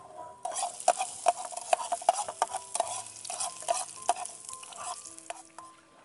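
Food frying in a pan and being stirred: a sizzle, with a utensil scraping and knocking against the pan many times in quick, irregular strokes. It starts about half a second in and thins out near the end.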